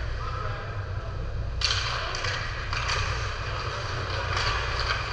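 Game noise: a steady low hum, with sudden scraping, hissing bursts starting about one and a half seconds in.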